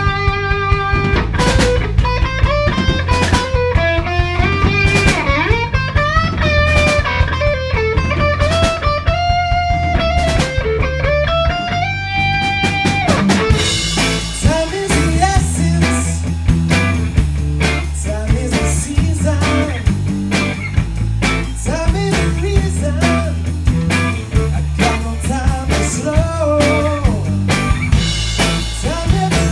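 Three-piece rock band playing: a lead guitar line with bending notes over bass and drums. About fourteen seconds in, the band grows fuller and brighter, with many cymbal strokes.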